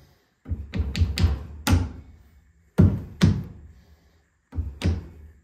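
Background electronic music with heavy, deep drum hits.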